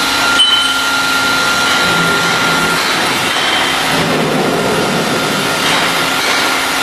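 CNC cutting machine running: a steady loud noise with a thin high whine that drops away about three seconds in, and a short knock about half a second in.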